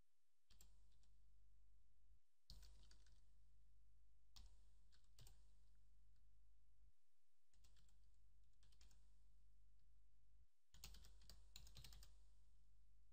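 Faint computer keyboard typing in several short bursts of keystrokes, the busiest burst near the end.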